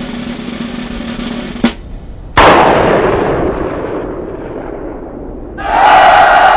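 Cartoon sound effects: a snare drum roll that ends with a single stroke about a second and a half in. Then a loud bang with a long hiss fading away, as a signal flare shoots up into the sky. Loud music starts near the end.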